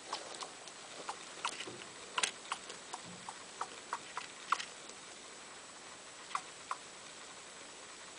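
A small pet making a run of short, quick clicking squeaks, irregular and close together for the first few seconds, then two more near the end.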